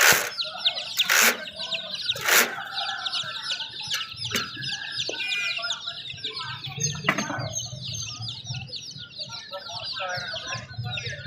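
A crowd of young chicks peeping nonstop, high and dense, with hens clucking among them. Three loud sudden noises about a second apart come in the first few seconds.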